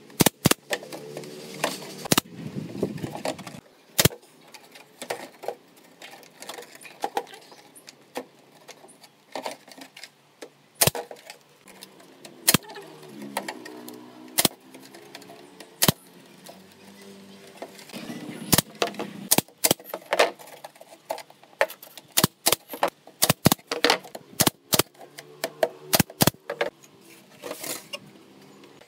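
Pneumatic nail gun firing nails through wooden slats into a round wooden end piece: dozens of sharp shots at irregular intervals, some in quick runs of two or three.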